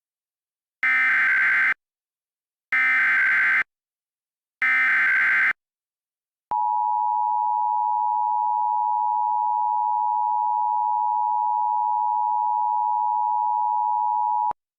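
Emergency Alert System SAME header: three roughly one-second bursts of screechy digital data tones, then a steady attention tone held for about eight seconds that cuts off sharply. The sequence marks the start of a new alert, the severe thunderstorm warning read out next.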